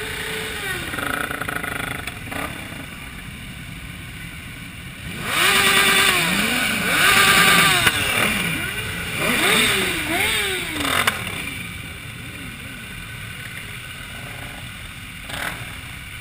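A group of sport motorcycle engines revving as the bikes move off together. Several engine notes rise and fall in overlapping sweeps, loudest from about five to eleven seconds in, over a lower steady engine sound before and after.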